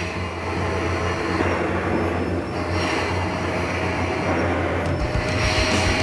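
Vacuum cleaner running with a steady hum.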